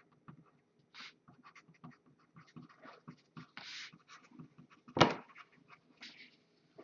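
Scattered light rustles and small clicks of objects being handled on a table, with one louder knock about five seconds in.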